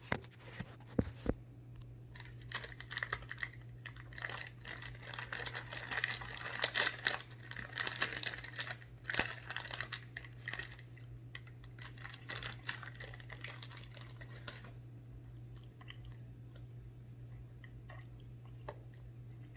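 Plastic cheese packaging being handled and opened, crinkling and rustling in irregular bursts for about twelve seconds before it dies down.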